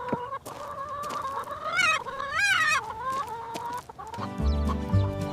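Chickens clucking and squawking in wavering calls, loudest and most warbling around the middle. Music with a steady beat comes in about four seconds in.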